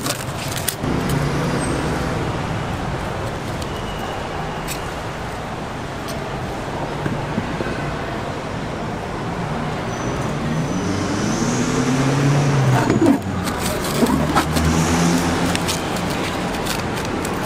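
Steady background rumble of road traffic, with a vehicle engine rising in pitch for a few seconds past the middle. Near the end come crinkling crackles of plastic as jackfruit bulbs are slipped into a plastic bag.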